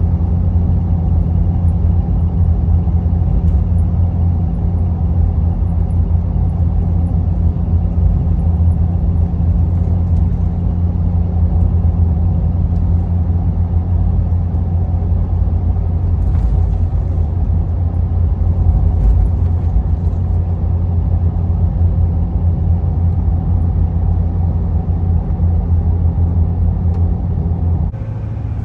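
Ford 6.7 Powerstroke V8 turbodiesel, fitted with a 5-inch DPF-back exhaust with no muffler or resonator, cruising at highway speed, heard from inside the cab. It makes a steady low drone.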